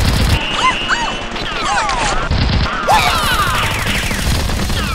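Sound-effect gunfight: continuous rapid gunfire with whistling ricochet-like whines gliding up and down over it.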